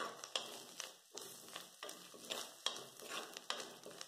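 Metal slotted spoon stirring and scraping fried cashews, almonds, raisins and rose petals in ghee around a clay pot, with a faint sizzle; a quick, even run of strokes, roughly three a second.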